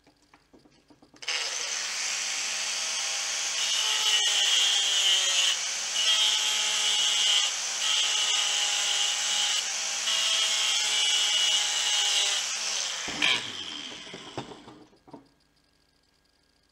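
Angle grinder switched on about a second in and run for about twelve seconds, with four spells of a harsher grinding note as the disc bites into a small part. It is then switched off and winds down, its pitch falling over about two seconds.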